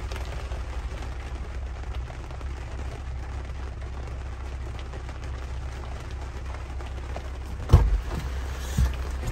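Heavy rain pattering on a Jeep Wrangler's roof and windshield over the low steady rumble of its idling engine. A single loud thump comes near the end, with a smaller knock just after.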